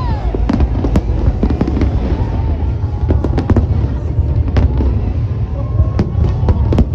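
Fireworks display going off continuously: rapid sharp cracks and bangs over a constant deep rumble of shell bursts.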